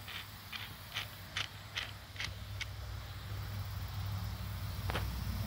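Wing nut being turned by hand on a steel bolt with a flat washer: a run of small metallic clicks, about two to three a second, that stops a little past halfway, then one more click near the end. A low rumble grows louder underneath in the second half.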